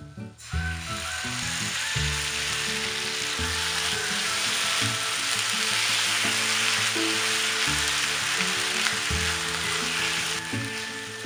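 Shio-koji (salt koji) sizzling in a hot non-stick frying pan, with the heat already switched off, as whole blistered green peppers are tossed through it with tongs. The sizzle starts suddenly about half a second in and dies down near the end.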